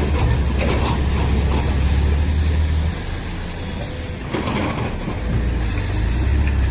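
A heavy vehicle engine running with a steady low rumble, which eases off about three seconds in and grows again near the end, with a few sharp knocks.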